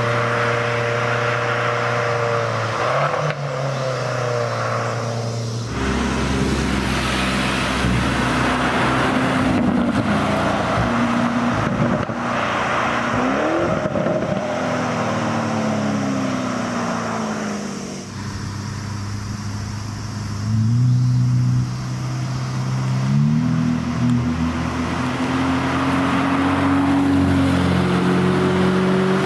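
Several sports cars driving past one after another, their engine notes rising and falling as they rev and shift gears. The drivers include an Abarth hatchback's small turbo four, a Lamborghini Urus's deeper twin-turbo V8, and near the end a Ferrari F8 Tributo's twin-turbo V8 pulling away.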